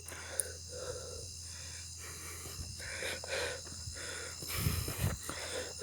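Crickets chirring faintly and steadily, with soft breathy noise and a couple of low thumps near the end.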